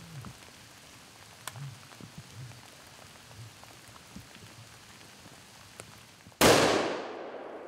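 Light rain patter, then about six seconds in a single sudden loud bow shot that dies away over about a second.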